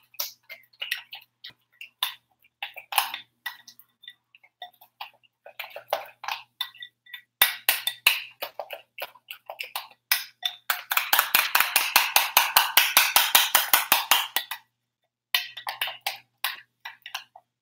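A spoon stirring remoulade sauce in a glass bowl: scattered clicks and scrapes against the glass, quickening past the middle into a fast, even run of clicks that stops abruptly, then a few more taps.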